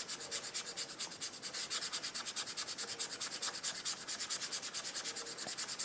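A half-inch Lunar Blender dry brush scrubbing on a painted surface in rapid, even, scratchy strokes. The brush is nearly dry, its wet paint wiped off, so the bristles rasp over the surface as it is dry brushed.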